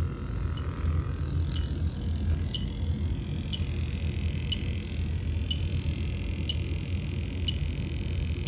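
Steady low machine hum, with a short high-pitched electronic beep repeating about once a second.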